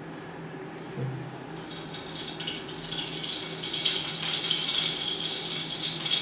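Ghee spooned into a hot frying pan, hissing and sizzling, the sizzle growing louder after about two seconds, with a soft knock about a second in and a faint steady hum underneath.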